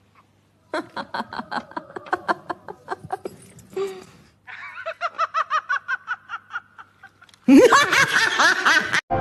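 Someone giggling in quick repeated bursts, in two runs, then a much louder yell about seven and a half seconds in that stops abruptly.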